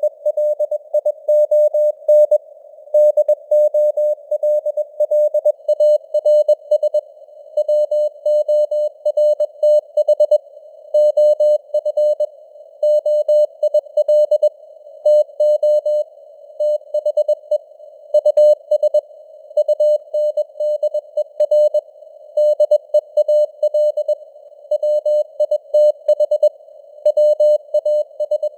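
Morse code (CW) sent at 21 words per minute as a single mid-pitched tone keyed on and off in rapid dots and dashes. The tone sits in a narrow band of simulated radio static, like a receiver tuned to a CW signal.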